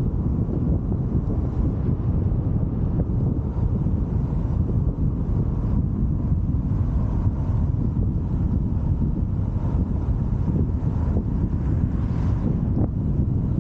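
Steady low rumble of a car driving at an even speed, heard from inside the cabin.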